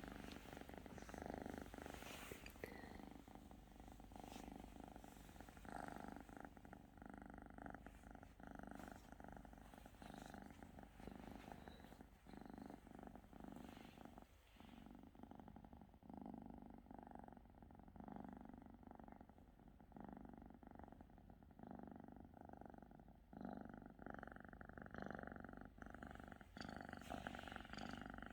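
Domestic cat purring softly and steadily, swelling and fading in a slow rhythm every second or two.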